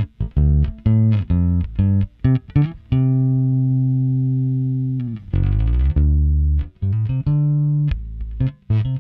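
Fender Custom Shop '55 Precision Bass with flatwound strings and a single-coil P pickup, played fingerstyle with volume and tone full up. It plays a line of short plucked notes, then a long held note about three seconds in, then a note that slides down in pitch, then more short notes.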